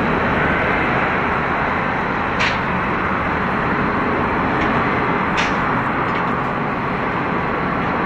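Airbus A350-941's Rolls-Royce Trent XWB engines at taxi idle as the jet taxis: a steady jet rush with a faint high whine. Two brief high chirps stand out, one near the middle and one later.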